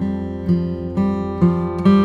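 Background music: an acoustic guitar plucking notes at a gentle, even pace, a new note or chord about every half second.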